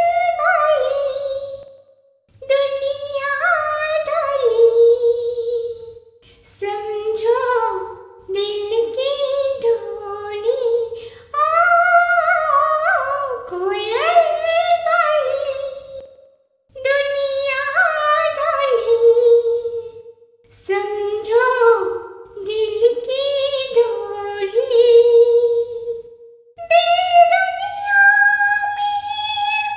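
A woman singing alone without accompaniment, in melodic phrases of a few seconds each with short breaks between them.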